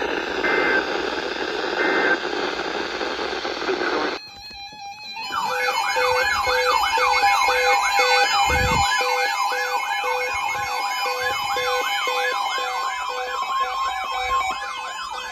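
Emergency alert broadcast tones: hissing static with a few short beeps for about four seconds, then, after a brief drop, a rapidly warbling siren-like alert tone over a steady tone and a lower beep pulsing about twice a second. It is the alert signal that opens a tornado warning.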